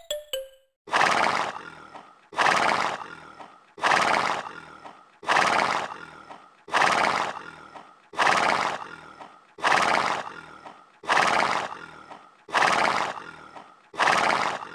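A horse snorting, the same snort repeated about every second and a half, ten times in all, each starting sharply and fading away: a looped horse sound effect.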